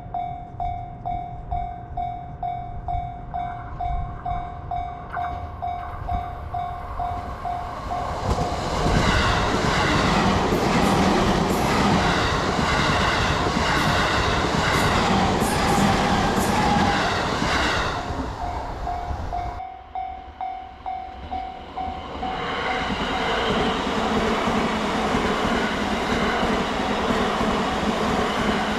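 Japanese level-crossing warning bell ringing in a steady two-a-second electronic ding. After about eight seconds a train passes over the crossing with loud wheel clatter for about ten seconds. The bell sounds again, and a second train passes from a little past the middle to the end.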